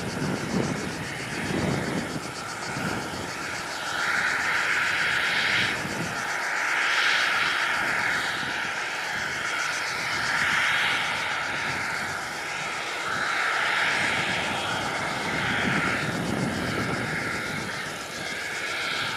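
Airbus A321-211 jet engines (CFM56) running, a steady whine under a loud roar that swells and fades every few seconds.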